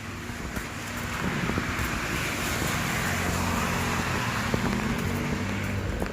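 A car driving past: engine hum with tyre hiss that swells from about a second in and fades near the end.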